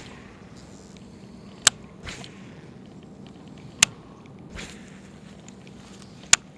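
Sharp single clicks about every two seconds, three of them, with soft rustling in between.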